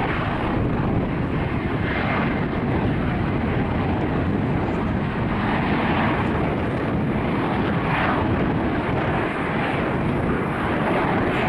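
F-35B Lightning II's single Pratt & Whitney F135 turbofan engine running, a steady jet noise that holds at an even level.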